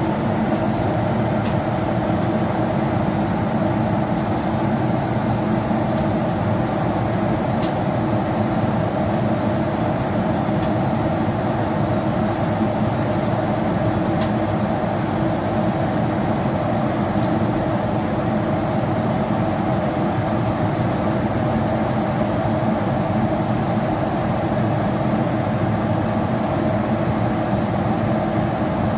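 Steady cabin drone of a Boeing 767-400ER in cruise flight: engine and airflow noise heard from inside the cabin, with one faint click about eight seconds in.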